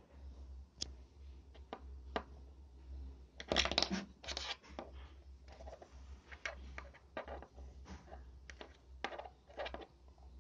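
Plastic Lego minifigure parts being handled and adjusted by hand: scattered light clicks and scrapes, with a louder burst of scraping and rattling about three and a half to four and a half seconds in.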